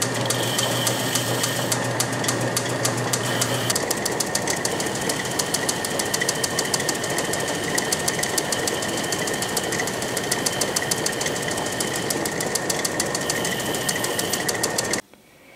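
South Bend 10-inch Heavy metal lathe running under power while a boring bar cuts an internal taper, fed by hand on the compound rest. A steady mechanical running noise with a rapid, even ticking and a low hum that drops out about four seconds in. The sound cuts off suddenly near the end.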